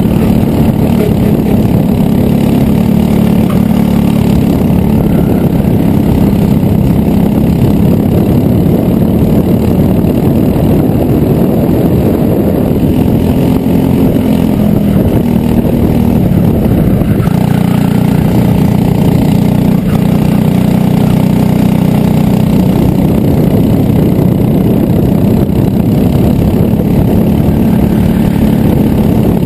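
Racing kart engine running at full race pace, its note rising and falling as the kart brakes into corners and accelerates out again.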